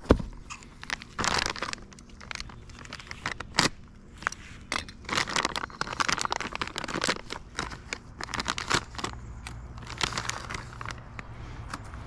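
Plastic packaging bag crinkling and a cardboard box being handled, with irregular rustles, crackles and light taps as a part is unpacked.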